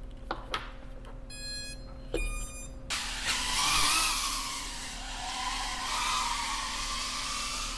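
Battery plug clicking into a brushless BetaFPV Beta85 Pro 2 whoop, then two beeps from its motors as the flight controller and ESC finish powering up, now fed by an external 5 V BEC. About three seconds in, the motors and propellers spin up and whine in flight, the pitch rising and falling with throttle.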